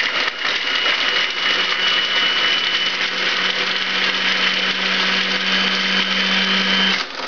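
Countertop food processor motor running steadily with a high whine, its blade chopping garlic cloves in the plastic bowl; it stops suddenly about seven seconds in.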